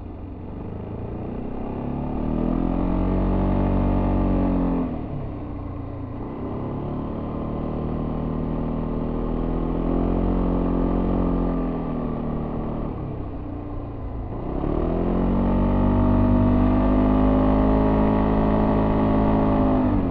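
Yamaha Tricity 300 scooter's single-cylinder engine through its stock exhaust, heard from on board. It pulls up in revs under throttle three times, dropping sharply as the throttle is closed about 5 s in, easing off again around 13 s, then climbing and holding high revs until it cuts off sharply at the very end.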